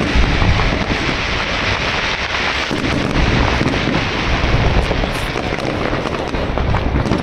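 Fireworks display: a dense, unbroken run of overlapping bangs and crackles from aerial shell bursts, with deep booms.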